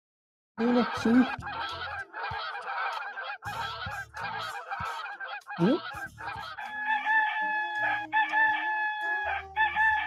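Chicken sound effect: a run of rapid, choppy cackling calls, then three longer held calls near the end.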